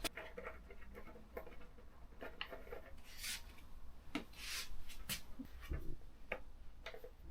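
Hands fitting a motorcycle windshield and its fixings: scattered light clicks, with a few short rubbing sounds about three, four and a half and five seconds in.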